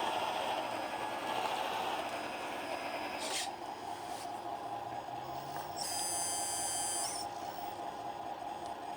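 Radio-controlled hydraulic construction model running, with a steady whine from its electric hydraulic pump. A short noisy swish comes about three seconds in, and a high-pitched tone lasts about a second near six seconds in.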